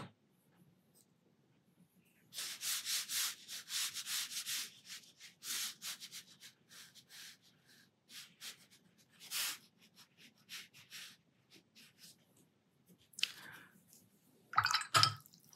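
Round watercolour brush rubbing and dabbing on watercolour paper: short, dry, scratchy strokes in several runs with pauses between, heaviest about two to five seconds in. A brief louder scrape comes near the end.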